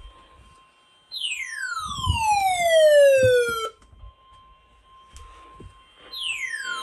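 A siren-like tone falls steadily from high to low over about two and a half seconds. It starts again near the end, over a faint steady hum-like tone.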